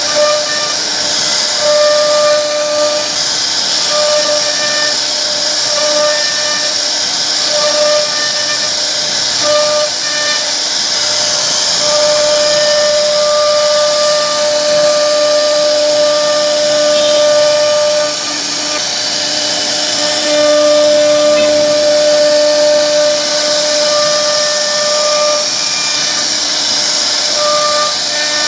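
CNC router spindle running at high speed with a router bit cutting a carved relief into a wooden panel: a steady high whine and hiss, with a lower tone that switches on and off every second or few.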